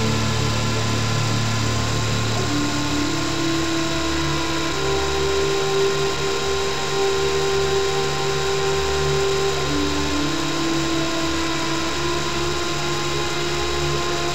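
Whine of the MJX F45 RC helicopter's electric motor and gears, picked up close by its onboard camera, running steadily. Its pitch steps up a couple of times and drops back near the end as the throttle changes.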